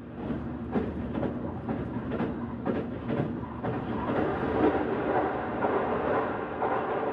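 A train running on the rails: a steady rumble with scattered sharp clicks of the wheels.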